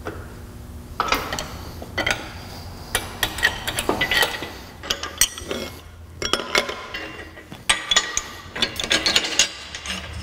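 Metal clinking and rattling as an engine hoist's hook and chain are shifted on the steel lift plate bolted to the top of the engine. There is a string of sharp, irregular clinks with brief ringing, starting about a second in.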